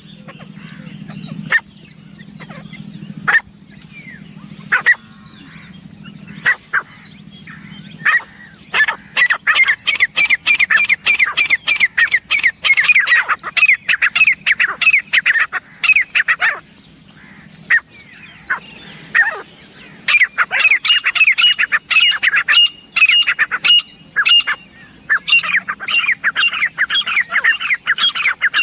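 Grey francolin (teetar) calling: after a few scattered notes, long runs of fast, shrill repeated notes, a short lull, then another run.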